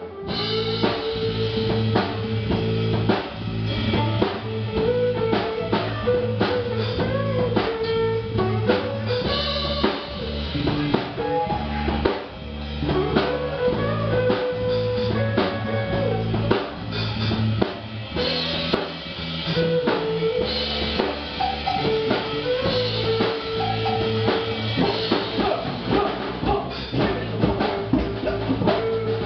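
Live band playing a funk-blues song: a drum kit driving a steady beat under electric guitar, with held melodic notes over the top.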